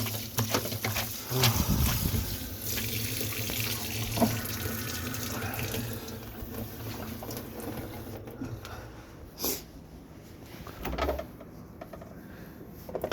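Warm water running from a tap as a cleaning towel is rinsed out; the flow stops about six seconds in, followed by a few short knocks of handling.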